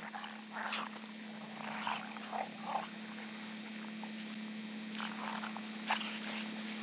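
A dog's short breathy huffs and snuffles during a rough chase in snow, coming in scattered bursts over a steady low hum.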